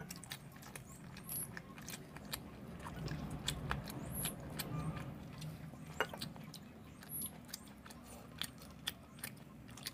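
Two people eating chicken curry with poori by hand: chewing and mouth sounds, with many short sharp clicks and smacks scattered through, over a low steady hum.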